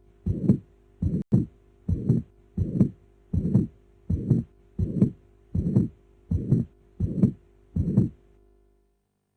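Recorded human heartbeat sounds, a steady regular rhythm of about eleven low thudding beats, each under a second apart (around 80 beats a minute). The beats stop about a second before the end.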